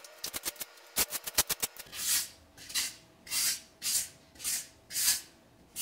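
Metal putty knife scraping a paste of grout mixed with acrylic paint across glazed wall tiles. A quick run of short clicking strokes for about two seconds gives way to long scraping swipes, roughly one every two-thirds of a second.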